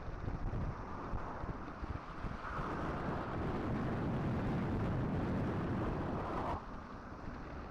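Wind buffeting the microphone of a moving bicycle, a steady rush of noise with no voice. It swells into a louder rush a few seconds in and drops back abruptly near the end.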